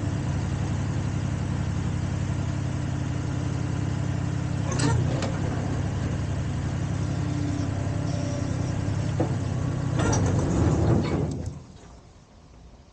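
Mini excavator's diesel engine running steadily, swelling briefly twice, then dying abruptly about eleven seconds in: the engine stalls by accident while the boom is being moved.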